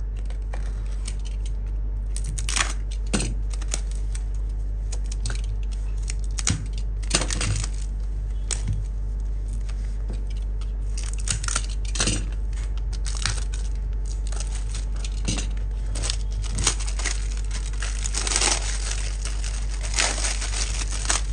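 Cellophane wrap on a cardboard perfume box being slit with a utility cutter and peeled off, with scattered crinkling and tearing. A denser run of crinkling comes near the end.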